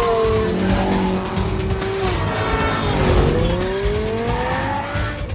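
Street-racing car engines at full throttle: one engine's note drops as a car passes close at the start, then engine notes climb steeply from about halfway as the cars accelerate.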